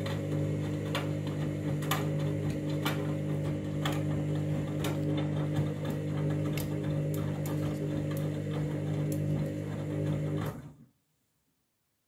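Front-loading washing machine tumbling a wet load in the main wash: a steady motor hum with light knocks every half second or so as the load turns in the drum. It cuts off suddenly near the end.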